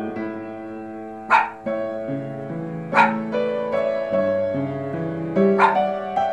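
Three short dog barks, about a second and a half in, at three seconds and near the end, over background music with held piano-like notes.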